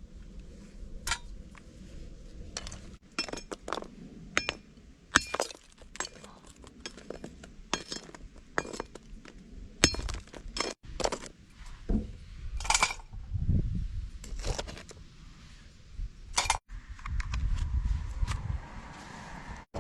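Hard lumps of coal clinking and knocking against each other and a small metal stove as they are loaded and shifted to start a coal fire: an irregular run of sharp clinks with a few duller thuds.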